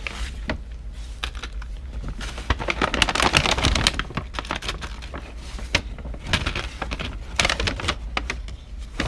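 Jewelry and beads being handled and rummaged through: quick small clicks and rattles, busiest around three to four seconds in.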